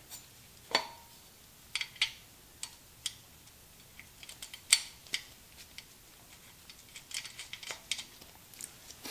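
Scattered metallic clicks and clinks from a socket ratchet working the sprocket bolts on a dirt bike's rear wheel hub, with short runs of quick ticks about four and seven seconds in.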